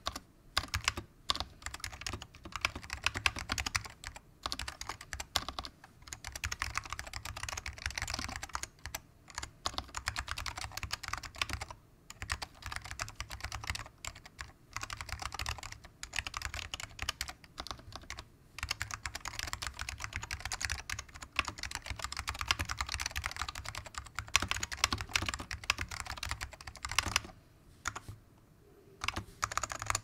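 Fast typing on a custom 60% keyboard with vintage SKCM salmon Alps switches, dry-lubed, under AEK-II keycaps in a plastic GH60 case. Rapid runs of key clicks come in bursts with short pauses. They thin to a few separate strokes near the end and then stop.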